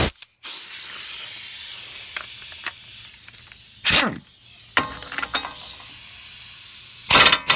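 Compressed air hissing from a pneumatic impact wrench, broken by a loud clank about four seconds in. Near the end the wrench starts hammering rapidly on the front axle nut to break it loose.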